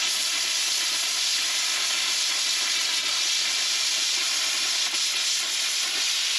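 Plasma cutter cutting through galvanized steel pipe: a steady, loud hiss from the torch.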